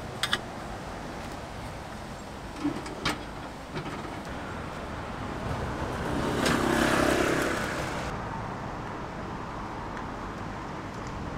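Street traffic running steadily, with a vehicle passing close by about six seconds in, its sound swelling and then fading. A few sharp clicks come in the first few seconds.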